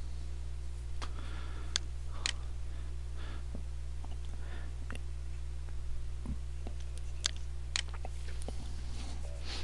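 Computer mouse button clicking several times at irregular intervals, each a short, sharp click, as stamp entries are selected with Ctrl-clicks. A steady low electrical hum runs underneath.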